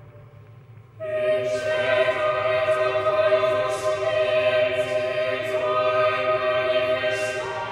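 Background choral music: a choir singing long held notes, coming in fuller about a second in after a quiet passage.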